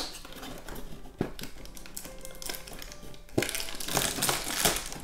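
Cardboard advent calendar door being pressed and pulled open, with a sharp click or two and a plastic bag rustling from about three seconds in, over soft background music.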